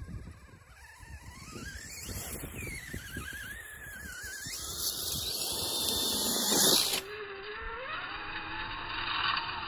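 Electric motor of a radio-controlled offroad truck whining as it climbs a gravel slope, its pitch wavering up and down with the throttle. About seven seconds in, the sound abruptly turns duller, and a lower whine rises in pitch.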